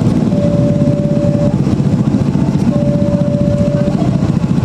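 Railway level-crossing warning signal sounding a single steady tone in long beeps, about a second on and a second off, over a loud, low vehicle rumble.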